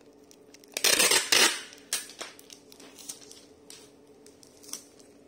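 Clear plastic packing wrap crinkling as it is handled, with two loud crinkling rustles about a second in, then scattered light rustles and clicks.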